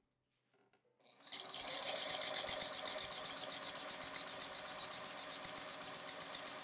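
JUKI domestic sewing machine with a walking foot stitching through a quilt at a slow, even pace, starting about a second in and running in a steady, rapid rhythm.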